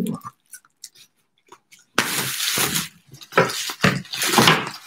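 Plastic bubble wrap being handled and pulled off a box: a few faint crackles at first, then loud, irregular crinkling and rustling from about two seconds in.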